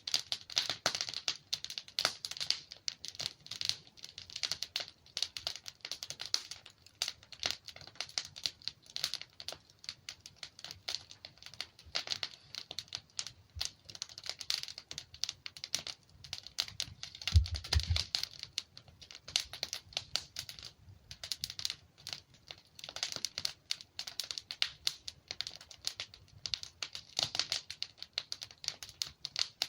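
Wood logs burning in a fireplace, crackling and popping continuously with dense, irregular snaps, and one louder, deeper pop a little past halfway.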